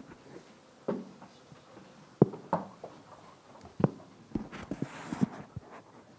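Scattered, irregular knocks and clicks with a brief rustle about five seconds in: handling noise from the speaker changeover.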